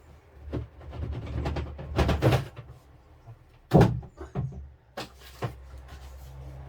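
Kit parts being taken out of a cardboard model-kit box: a string of knocks and short rustles as box and parts are handled, the loudest knock just under four seconds in.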